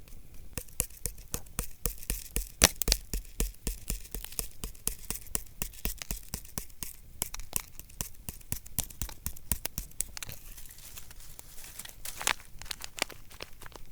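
Packaging being handled and torn open: a dense, irregular run of crinkling crackles with a few louder snaps.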